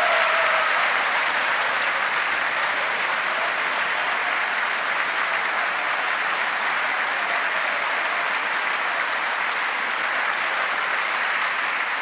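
Large audience of members of Congress applauding steadily in a sustained round of applause.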